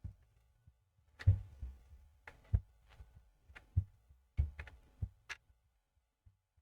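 Irregular knocks and clicks from hands handling laptop parts and tools on a workbench, about eight to ten short taps spread over four seconds. The taps then stop near the end.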